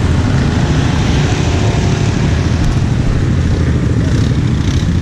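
ATV engine running steadily, a dense low rumble with no change in pace.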